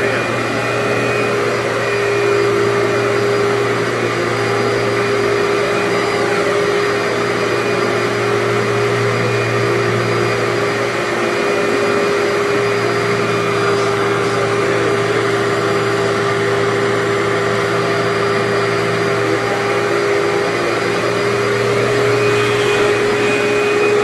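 Commercial upright vacuum cleaner running steadily as it is pushed over carpet, a constant motor hum with a steady tone.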